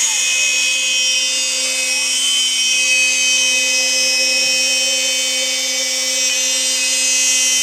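DIY CNC router running a job: the router spindle gives a steady high whine, while the stepper motors driving the axes whine in rising and falling glides as the gantry speeds up and slows down.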